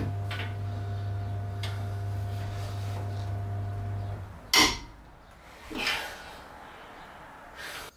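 A power tool motor running steadily on a seized front-brake bolt for about four seconds, then cutting off suddenly, followed by a sharp metallic clank.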